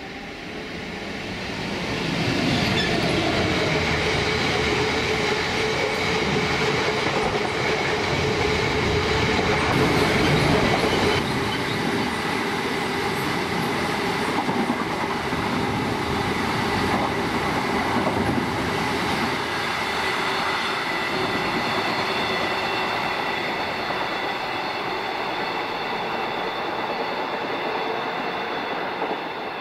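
A Class 66 diesel freight locomotive, with its EMD two-stroke V12 engine, passes close by hauling a long rake of open box wagons. The wagons' wheels run on the rails with a steady high ringing tone over the rumble. The sound builds over the first couple of seconds, holds, then fades slowly as the train draws away.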